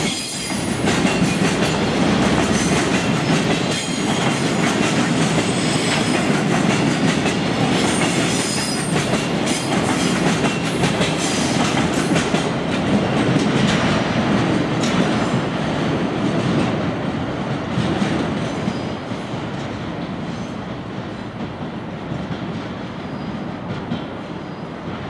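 Freight train of loaded container flatcars rolling past, its wheels clicking over the rail joints in a steady clickety-clack. The sound fades over the last several seconds as the end of the train goes by and draws away.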